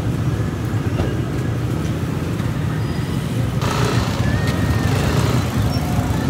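Street traffic: motorcycle engines running as a steady low rumble, with louder, noisier vehicle sound from about three and a half seconds in.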